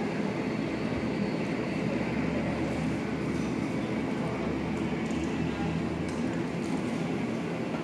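Steady, unchanging low mechanical hum and rumble with a faint noisy hiss on top.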